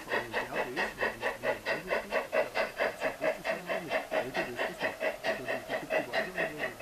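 Garden-railway model steam locomotive's sound unit chuffing at an even, steady rate of about five chuffs a second, each chuff a short hiss.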